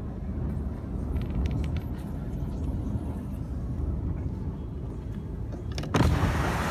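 Steady low rumble of a car heard from inside the cabin. About six seconds in, it gives way to a sudden louder rush of wind on the microphone outdoors.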